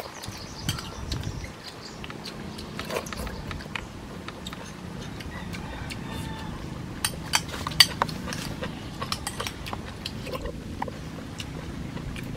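A person eating noisily: chewing and lip-smacking, with many short sharp clicks, densest a little past halfway, from a metal spoon against a ceramic bowl.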